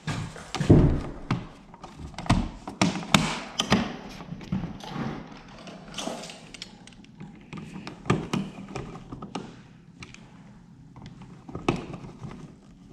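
Irregular taps, clicks and knocks of hands working on a dimmer switch and its wall box, the loudest knock about a second in.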